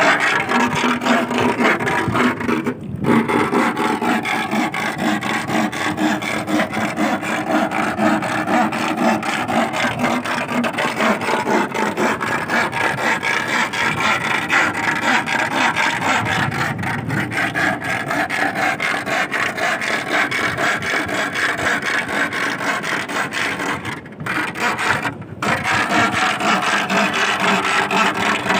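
A steel rod rubbed rapidly back and forth against a wooden stake driven into a tidal sand flat, making a continuous rasping, with short pauses about three seconds in and twice near the end. The noise and vibration of the iron going into the ground are meant to draw sea worms (sasing) up out of the sand without digging.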